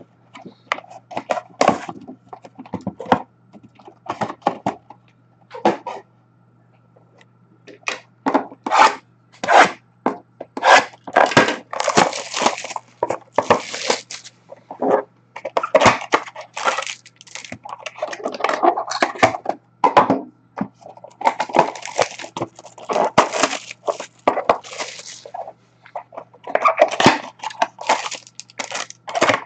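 Plastic wrapping on a box and packs of trading cards being torn and crinkled open, in irregular bursts of crackling with short pauses.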